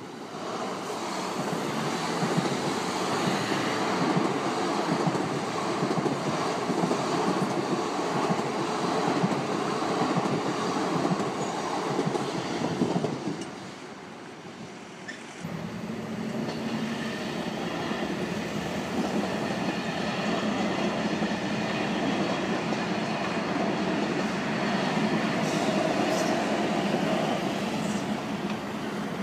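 Two electric commuter trains pass over a level crossing one after the other, their wheels rattling over the rails. A short lull falls about 13 seconds in before the second train comes through with a steady hum.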